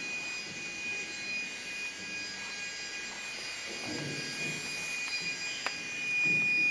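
A steady high-pitched whine made of several fixed tones, over faint distant voices, with a single sharp click shortly before the end.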